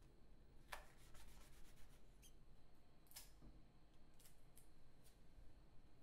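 Faint rubbing and rustling of hands handling and smoothing a sheet on a screen-printing frame, with a few short scrapes, the clearest near the start and about halfway through.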